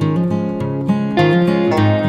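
Background music: an acoustic guitar playing quick plucked and strummed notes over a bass line.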